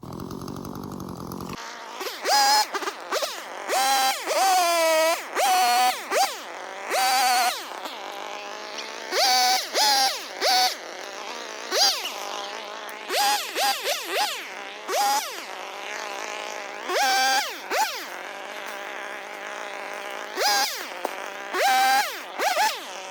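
Chainsaw engine idling and being revved in many short throttle bursts, each rising in pitch and falling back, at irregular spacing.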